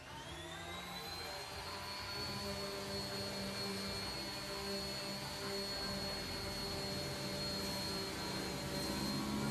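Electric random orbital sander spinning up, its whine rising in pitch over the first couple of seconds, then running at a steady pitch while sanding the face of a wooden cutting board.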